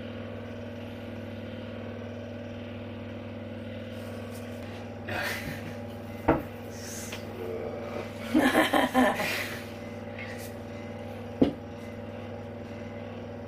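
A rolling pin knocks sharply on a wooden worktop twice, about six and eleven seconds in, over a steady low hum. There are short noisy bursts of handling sound around five and nine seconds in.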